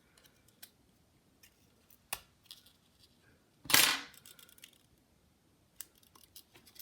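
Sparse small clicks and taps of hand tools against the iPod Nano's casing and parts, with one louder, brief clatter a little under four seconds in.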